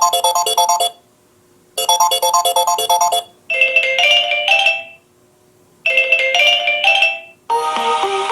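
Samsung Galaxy J6 (2018) stock ringtones: a short electronic melody phrase played twice, then a different phrase played twice, each with a brief pause after it. A different, fuller tune starts near the end.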